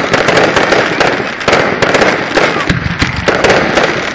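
Aerial fireworks going off in a rapid barrage: many sharp bangs and crackles in quick succession, several a second, with no pause between them.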